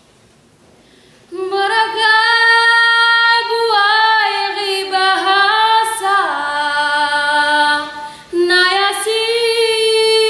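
A girl's solo voice singing a Lampung regional song, with no accompaniment heard. She comes in about a second in, holds long notes that slide between pitches, breaks off briefly near the end and goes on.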